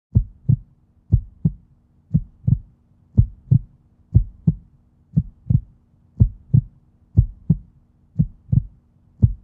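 Heartbeat sound effect: a low double thump, lub-dub, repeating evenly about once a second.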